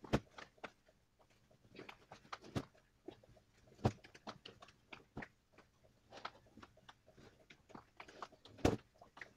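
A heavy plastic tarpaulin being unfolded and spread out by hand: irregular crinkles, rustles and knocks. Louder thuds come right at the start, about four seconds in, and again near the end.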